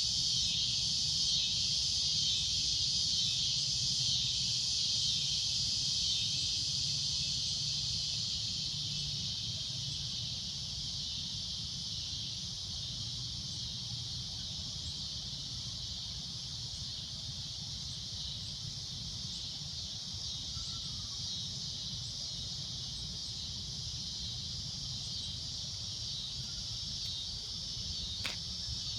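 Cicadas droning in a steady, shrill, high-pitched chorus that eases slightly in loudness after the first several seconds, over a faint low rumble. A single click sounds near the end.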